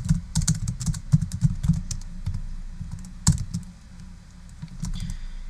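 Typing on a computer keyboard: a quick run of key clicks for about two and a half seconds, then one sharper keystroke a little after three seconds in, and quieter after that.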